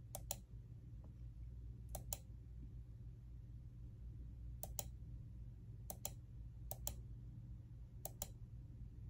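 Computer mouse button clicked six times at uneven intervals, each a quick press-and-release double click, advancing a photo slideshow to the next picture. A faint low hum runs underneath.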